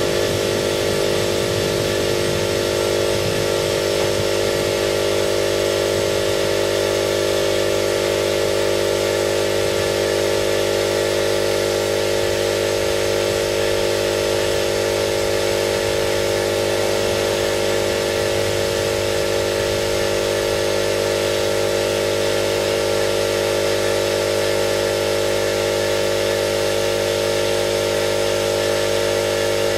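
Air compressor running steadily, an unchanging mechanical hum with no pauses.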